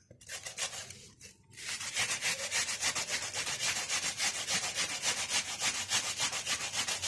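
An onion being grated by hand on a kitchen grater: quick, even scraping strokes, a short burst, a pause about a second in, then steady grating.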